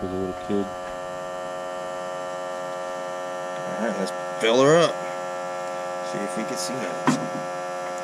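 Smoke machine's air pump humming steadily as it pushes smoke into the 1.4L Ecotec's intake to find a vacuum leak. A brief warbling sound about four and a half seconds in is the loudest moment.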